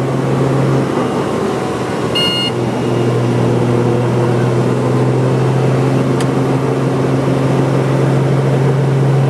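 Steady drone of a helicopter's engine and rotors heard inside the cabin. A brief high tone sounds about two seconds in, and a single click comes about six seconds in.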